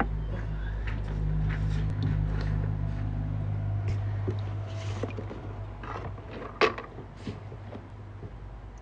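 Water dripping and splashing from a basket starfish held just above a bucket of water: scattered small drips and knocks, with one sharper knock a little past halfway. Under it runs a steady low hum that weakens after about five seconds.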